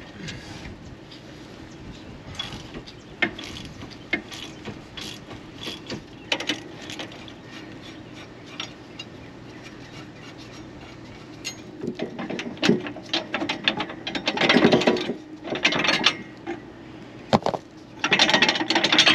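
Hand ratchet wrench clicking as it loosens and backs off the U-bolt nuts that clamp a trailer leaf spring to the axle. The clicks come in irregular runs, faster and louder over the last several seconds.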